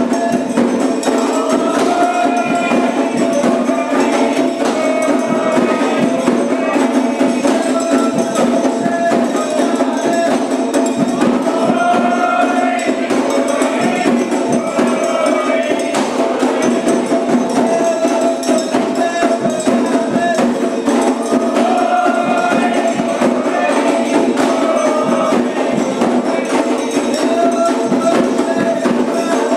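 Candomblé ritual music: dense percussion with a bright struck, rattling rhythm and voices singing in phrases over it.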